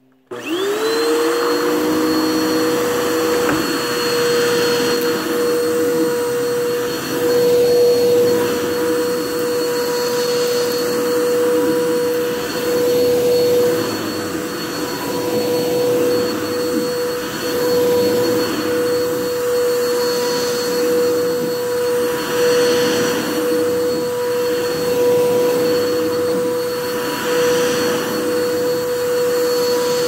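Bissell PowerForce Helix upright vacuum cleaner switched on, its motor quickly rising to a steady high whine over a rush of air. It then runs while being pushed back and forth over carpet, the sound swelling and easing with each stroke.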